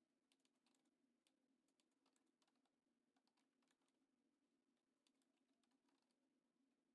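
Near silence, with faint scattered clicks over a low steady hum.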